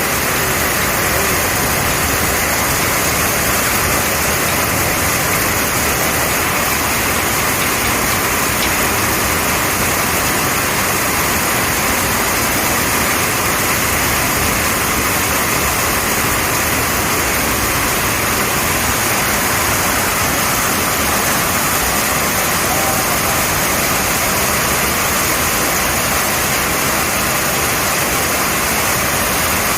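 Heavy summer downpour of rain falling steadily, an even unbroken hiss.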